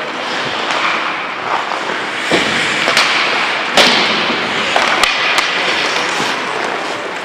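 Ice hockey play on the rink: a steady hiss of skates on the ice with several sharp knocks of sticks and puck, the loudest about four seconds in.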